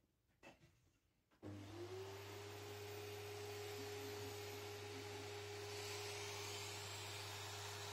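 Vacuum cleaner switched on about a second and a half in. Its motor spins up within half a second to a steady running whine with a rush of air, preceded by a few faint clicks.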